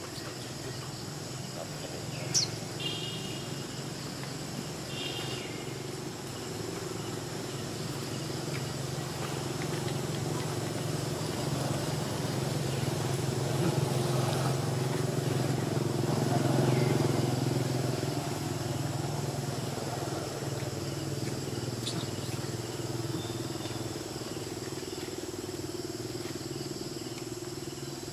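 A motor vehicle's engine running as a low, steady hum that slowly grows louder to a peak about two-thirds of the way through, then fades. Near the start there is a sharp click, then two short high-pitched calls.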